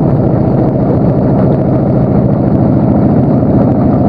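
Engine of a small fishing boat running steadily under way, a constant loud drone.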